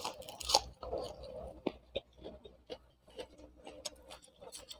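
Close-up mouth sounds of someone chewing raw onion, with irregular crisp crunches and wet clicks.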